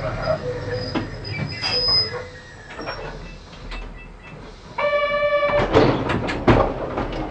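Kobe Electric Railway 3000 series train coming to a stop at a station, its wheels squealing thinly in the first two seconds. About five seconds in, a short buzzer tone sounds, followed by a run of sharp knocks and hiss.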